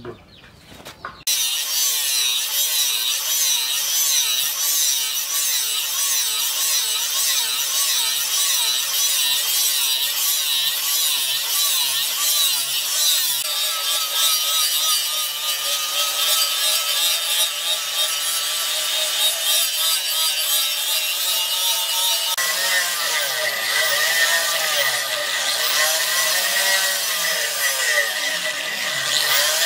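Angle grinder with an abrasive disc grinding the edge of a forged steel knife blade, cutting in suddenly about a second in and running steadily. About two-thirds of the way through, the grind takes on a higher steady whine.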